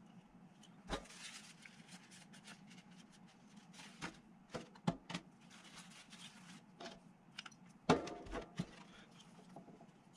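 Small clicks, taps and knocks of plastic miniature parts being handled, fitted together and set down in a cardboard hobby tray, with the loudest knocks about a second in, around four to five seconds in, and near eight seconds.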